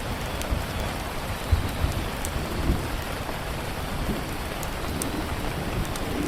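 Steady rain with scattered sharp pops of a crackling wood fire and a low rumble underneath.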